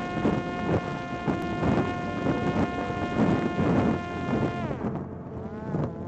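Parrot Disco fixed-wing drone's electric pusher motor and propeller whining at full power, heard from on board with wind buffeting the microphone. About four and a half seconds in, the whine drops in pitch and wavers.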